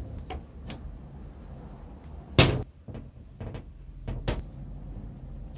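Vintage Black & Decker reciprocating saw handled on a metal workbench during disassembly: light clicks and taps, with one loud clunk about two and a half seconds in as the saw body is shifted on the bench.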